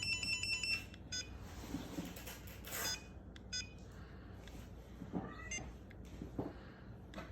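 Hobby RC battery charger giving short, high electronic beeps: a quick run of beeps at the start, then single beeps every second or two while it is being set to charge, with light handling noise.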